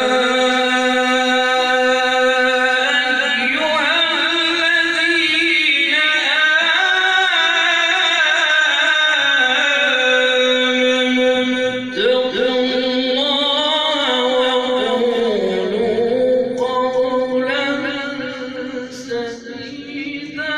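A man reciting the Quran in the melodic tilawat style, holding one long ornamented note for about twelve seconds, then starting a new phrase that wavers and dips lower.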